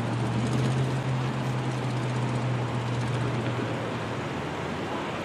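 A car driving across the railroad grade crossing: a steady low drone of engine and tyres that fades out about four seconds in, over a steady background hiss.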